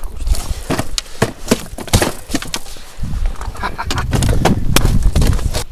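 Netted pike thrashing in a landing net inside an inflatable boat: a rapid, irregular run of knocks and slaps against the boat and the net frame. Wind rumbles on the microphone through the second half.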